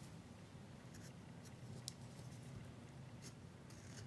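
Faint scraping and light ticks of a carving knife's blade paring small cuts in a wooden carving, over a low steady room hum.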